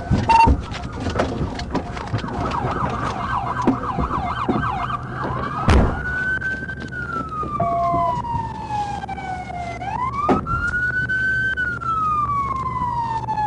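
Police car siren sounding a fast yelp, then switching about five seconds in to a slow wail that rises and falls, over steady road noise. A few sharp knocks, and one heavier thump around the switch.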